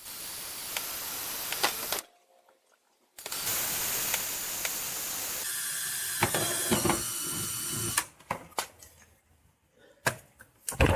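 Power drill running in two bursts, about two seconds and then about five seconds, as it bores pilot holes in a car bumper. A few light clicks and taps follow near the end.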